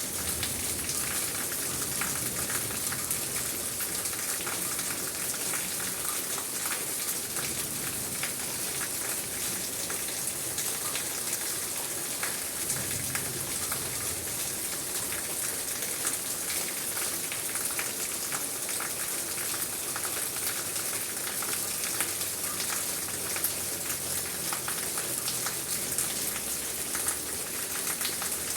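Steady heavy rain falling and pattering on surfaces, a dense even hiss with many individual drop ticks.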